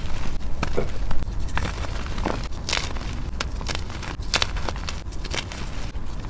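Soft-reform chalk pieces crushed and crumbled by hand into loose chalk powder: irregular dry crunches and crackles, the loudest about three and four and a half seconds in.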